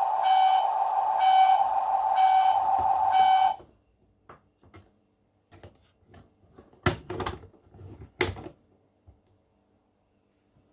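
Toy car transporter's electronic sound effect: a loud, steady buzzing alarm-like tone that swells about once a second and stops about three and a half seconds in. Then come scattered plastic clicks and knocks, with a few sharper clacks about two thirds of the way through.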